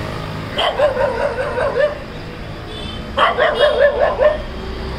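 A dog yelping in two bouts of quick, wavering cries, each about a second long, the first about half a second in and the second about three seconds in.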